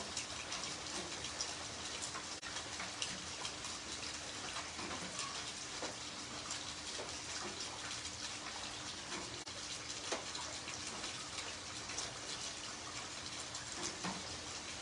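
Heavy rain falling steadily on a wet concrete surface, a dense patter of drops splashing into shallow standing water.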